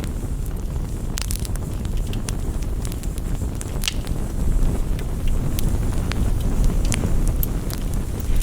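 Crackling campfire: irregular sharp pops and snaps over a steady low rumble.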